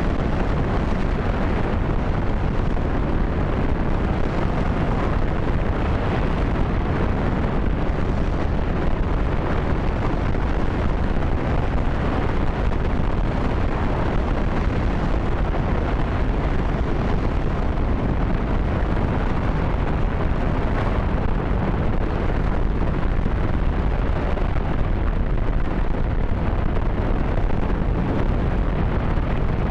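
J-2X liquid-hydrogen/liquid-oxygen rocket engine firing steadily mid-burn in a full-duration static test: a continuous, deep, noisy rumble that holds an even level throughout.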